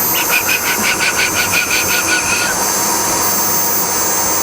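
End mill sharpening machine's grinder motor running steadily. For the first two seconds or so a rapid pulsing sound, about six pulses a second, rides over the steady running.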